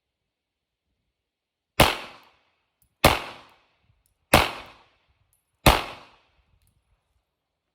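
Four shots from a 9mm Glock 19 pistol, fired at an even pace about a second and a quarter apart, each a sharp crack with a short echoing tail.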